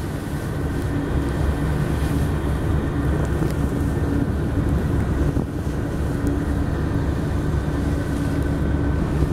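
Speedboat's engines running steadily under way, a loud, even drone.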